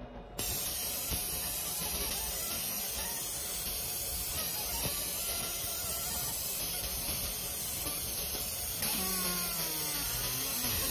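EM-Smart One 20 W fiber laser marking a logo into a black metal business card: a steady hiss of the beam ablating the surface, starting abruptly about half a second in. A few faint gliding whines come in near the end.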